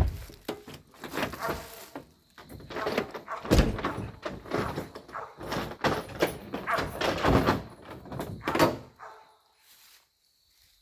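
A single loud thump right at the start, then footsteps crunching and swishing through dry fallen leaves and brush for about nine seconds, stopping near the end.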